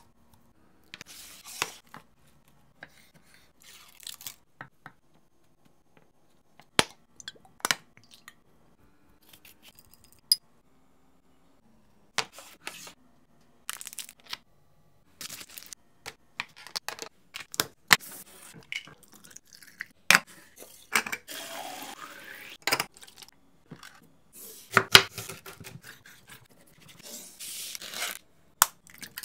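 Kitchen handling sounds from preparing and packing a lunchbox: scattered sharp clicks and taps of containers and utensils, with short stretches of rustling.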